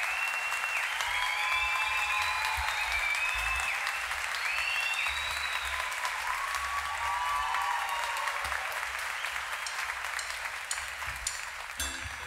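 Audience applauding, with high whistles and cheers rising and falling over the clapping. The applause slowly dies down, and a guitar begins plucking notes just before the end.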